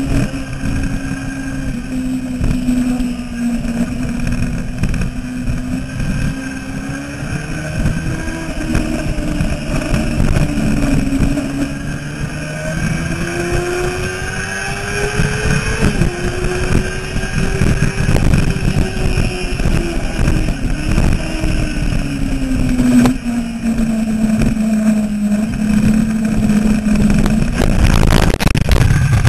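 Yamaha R6 600 cc inline-four running hard at racing revs, recorded on board with wind rushing over the microphone; the engine note falls, climbs, drops sharply once about halfway through, then falls and holds lower. Near the end a sudden, louder wide noise comes in as the rear tyre lets go in a lowside.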